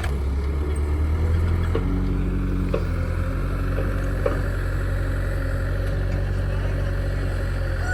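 Diesel engine of heavy earthmoving machinery running steadily, its note shifting slightly about two seconds in, with a few short knocks.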